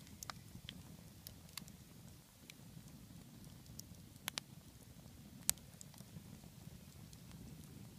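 Log campfire burning and crackling, with sharp scattered pops over a steady low rumble. Two pops come close together just past four seconds, and the loudest comes about five and a half seconds in.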